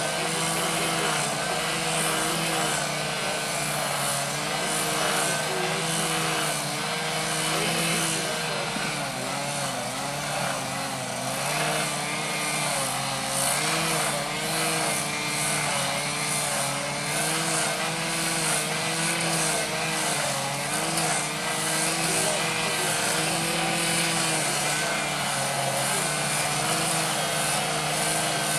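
Heavy work equipment running steadily with a constant low hum, plus a higher tone that rises and falls about every two seconds.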